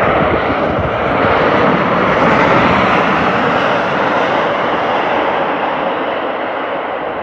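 Japan Airlines Boeing 787-8 arriving, its jet engines a loud, steady rush that swells to a peak two to three seconds in and then slowly fades as it passes.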